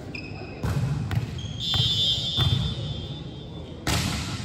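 A high whistle gives a brief toot, then a steady blast of about two and a half seconds. Several thumps of a volleyball being hit or bounced land across it, the loudest near the end.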